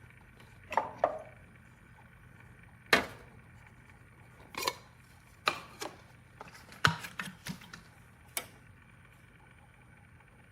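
A series of sharp knocks and clicks from hard objects being handled and set down, about a dozen spread irregularly over several seconds, the loudest about three seconds in and again about seven seconds in.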